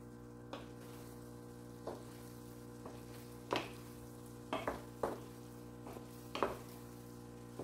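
A wooden spatula stirs cooked rice with chicken and vegetables in a stone-coated frying pan, making a handful of short scrapes and knocks against the pan. The loudest come about three and a half and six and a half seconds in, over a faint steady hum.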